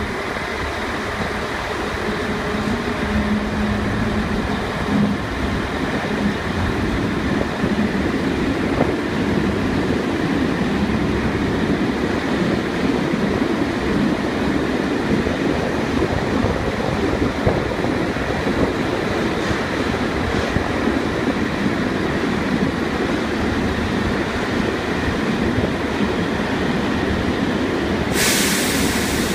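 A diesel locomotive runs past at the head of a long freight train of tank wagons. Its engine hum passes in the first few seconds, then the wagons' wheels roll steadily over the rails. A sudden hiss starts about a second before the end.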